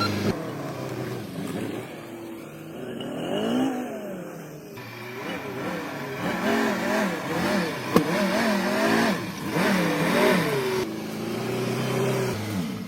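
Car engine being revved, its pitch rising and falling in a series of blips between spells of idling, with one sharp click about eight seconds in.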